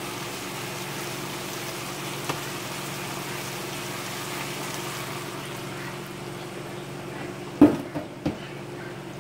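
Steady hiss of a pan of sardine and jackfruit stew simmering on the stove, with a low hum underneath. Two sharp knocks come near the end, the first the louder.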